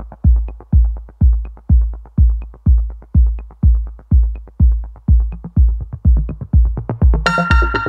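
Electronic dance music with a steady, punchy kick drum at about two beats a second. Bright synth chords come in near the end.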